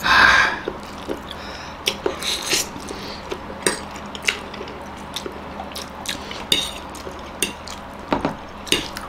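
Two people eating instant ramen noodles with forks: wet noodle slurps and chewing, with forks clicking and scraping on plates in short, scattered sounds. A louder slurp comes right at the start.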